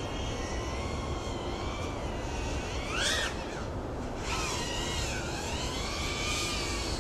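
FPV quadcopter's motors whining in flight, the pitch rising and falling with the throttle, with a louder sweep up and back down about three seconds in. A low steady rumble sits underneath.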